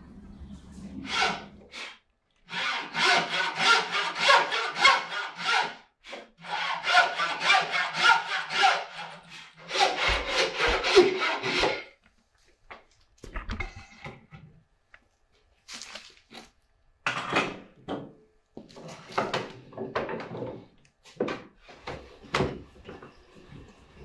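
Hand sawing through a wooden board with a wooden frame saw (bow saw), in three runs of quick rasping strokes. These are followed by shorter scattered scrapes and a few knocks of wood being handled on the bench.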